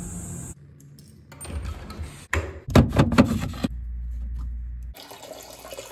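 A quick run of sharp knocks and clunks from a red-handled brass ball valve on a copper water line being handled and turned, followed by a low steady hum for about a second.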